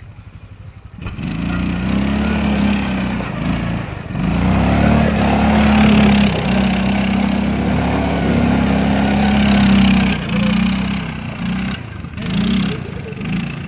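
ATV (quad bike) engine revving hard as it drifts and spins its wheels on snow. The revs come up about a second in and stay high for several seconds. They then drop back and rise and fall again near the end.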